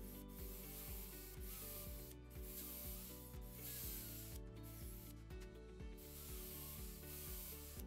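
Cordless drill boring into wood through the guide of a Rockler Beadlock Pro jig: a steady rasping of the bit cutting, broken three times by short pauses as the bit is drawn up to clear the chips.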